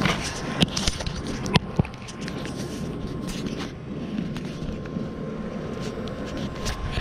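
Fingers knocking and rubbing on a handheld camera and its microphone, with a few sharp clicks in the first two seconds, over a steady low rumble and a faint steady whine.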